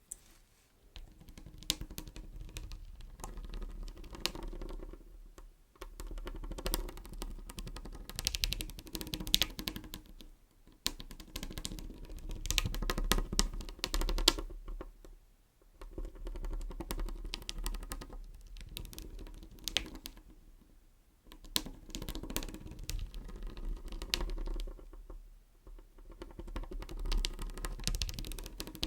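Close-miked rapid tapping and crackling on beeswax items, in bursts of several seconds separated by short pauses.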